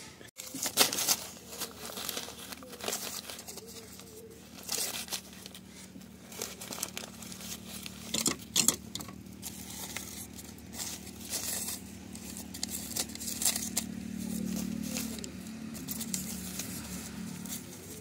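Crumpled paper and newspaper rustling and crinkling in irregular scratchy bursts as a kitten paws and scrambles over it, with a low steady hum underneath.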